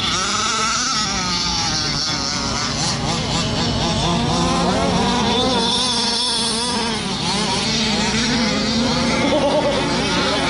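50.8cc O'Neill Brothers inline twin two-stroke engine of an HPI Baja 5B 1/5-scale RC buggy, running on methanol and revving up and down continuously as the buggy is driven hard.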